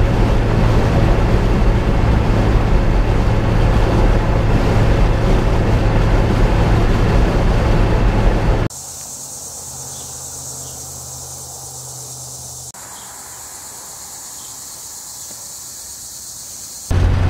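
Steady road and engine noise inside a vehicle's cabin at highway speed, with a strong low hum. About 8.7 seconds in it cuts to a much quieter outdoor scene with a steady high hiss.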